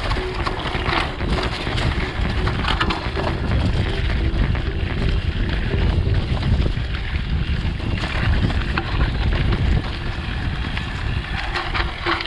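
Wind buffeting the microphone, with a mountain bike rattling and clattering as it runs fast over a rough trail.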